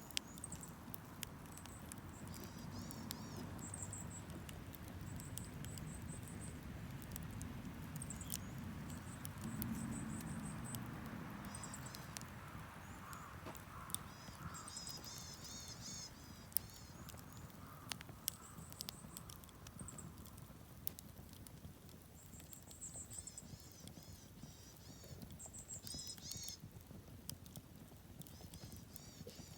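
Wood fire crackling, with scattered sharp pops over a low rumble, while small birds chirp in short bursts of high calls.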